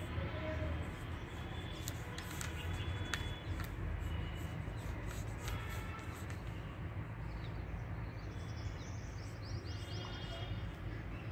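Outdoor background noise, a steady low hum, with birds chirping now and then.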